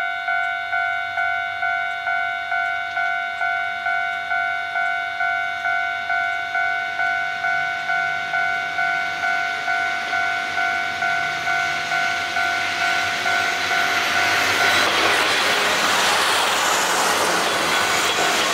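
Electronic railway level-crossing bell dinging steadily, about two and a half times a second. A diesel railcar then approaches and passes close by, and its engine and wheel noise rises to drown out the bell from about thirteen seconds in.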